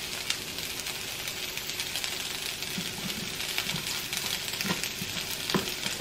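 Sliced peppers and red onions sizzling in a frying pan, a steady hiss full of fine crackles, with a couple of sharper pops near the end.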